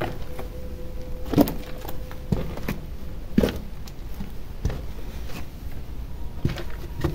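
Footsteps going down narrow stone steps: irregular scuffs and knocks of shoes on stone and grit, about one a second.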